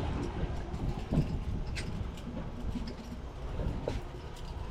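Wind and water noise on an open fishing boat: a steady low rumble, with a few faint clicks.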